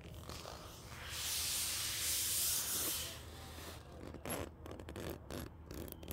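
A loud hiss, mostly high-pitched, lasting about two seconds, followed by a few soft rustles and taps.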